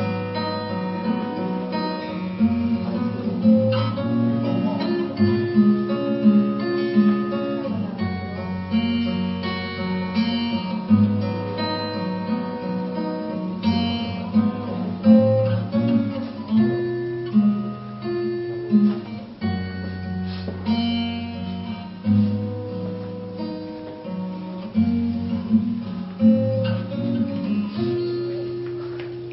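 Solo acoustic guitar played live, chords strummed and picked with ringing notes and no singing. The playing tapers off near the end.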